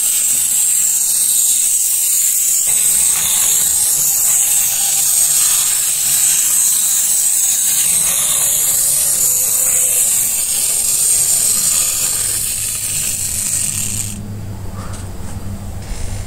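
Capsule Plarail wind-up toy trains running on plastic track: a steady, high whirring of the small clockwork motor and gears, with the rattle of the wheels on the track. The whirring drops away about two seconds before the end.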